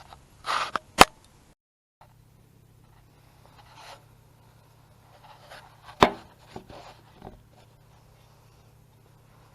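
Scattered knocks and clicks from something being handled, with a short rustle just before the first click. There is a sudden gap of silence about one and a half seconds in, and the loudest knock comes about six seconds in.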